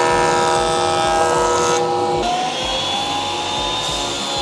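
Woodworking power tools running with a steady motor whine. For the first two seconds a benchtop jointer cuts as a wood block is fed across it, with a hiss of cutting. About two seconds in the sound changes to a thickness planer running.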